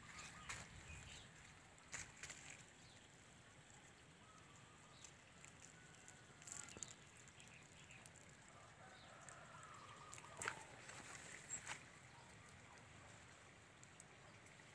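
Near silence: faint outdoor ambience with a few soft clicks and rustles.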